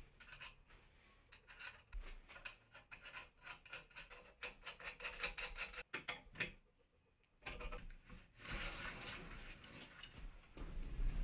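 Quick run of light metallic clicks from a wrench tightening the axle nut on a solid rubber cart wheel, then a few seconds of softer rubbing and handling noise.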